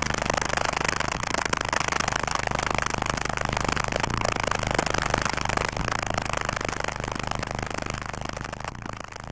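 Eight 18-inch Ground Zero car subwoofers playing deep bass at very high level, with a dense rattling noise over it; it grows quieter near the end.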